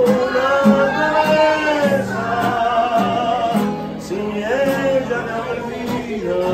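A man singing to his own strummed acoustic guitar, live. He holds long notes with a wavering vibrato over chords strummed in a steady rhythm.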